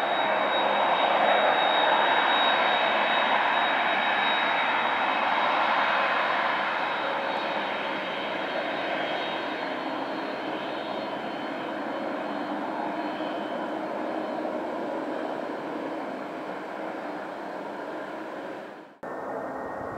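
Airbus A310-304's twin General Electric CF6-80C2 turbofans running at taxi power: a steady high whine over a wide rush, loudest while the engines face the listener and then slowly fading as the jet turns away. Near the end the sound drops out abruptly for a moment and comes back.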